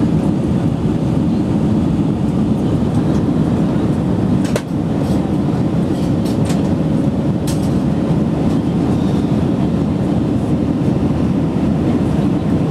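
Cabin noise inside an Airbus A319 climbing out after takeoff: a steady, deep roar of the engines and rushing air. A sharp click comes about four and a half seconds in, with a few fainter clicks soon after.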